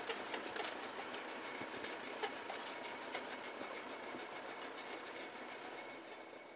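Metal rattling and clanking from a Kesla 203T forestry trailer crane and its trailer: a quick run of small knocks over a steady machine hum, thinning out and easing off over the last couple of seconds.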